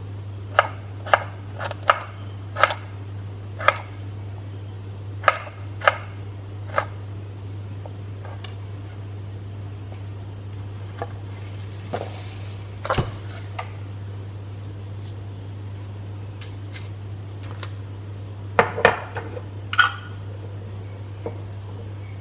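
Knife chopping on a cutting board in irregular strokes, a quick run of knocks at first, then scattered ones and a short cluster near the end, over a steady low hum.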